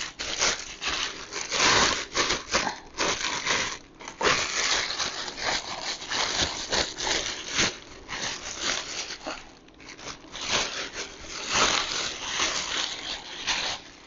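Plastic packaging bag crinkling and rustling in irregular bursts as it is pulled off an electric grain mill.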